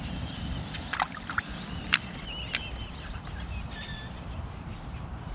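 Water sloshing against a plastic fishing kayak's hull, with two sharp knocks about one and two seconds in.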